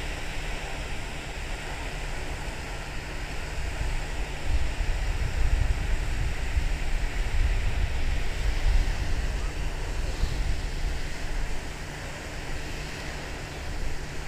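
Wind blowing across the camera microphone: a steady rush with a heavy low rumble, stronger for a few seconds in the middle and easing near the end.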